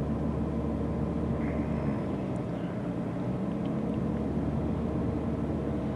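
Steady engine and road noise of a car driving along, heard from inside the car.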